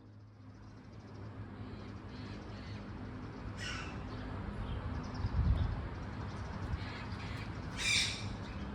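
Yellow-collared macaw giving two short, harsh squawks about four seconds apart, the second louder. Under them runs a low rumble that swells into a brief buffet about halfway through.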